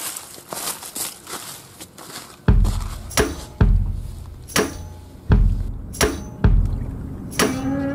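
Footsteps crunching over dry fallen leaves, then from about two and a half seconds in, a music track with heavy, irregular drum hits.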